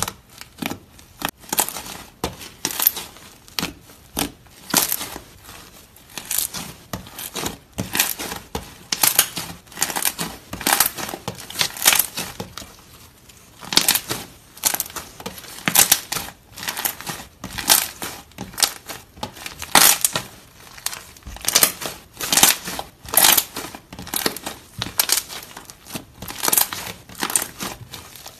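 Hands poking, folding and stretching a thick coffee-brown slime: an irregular run of sticky crackles, pops and sharp clicks, several a second.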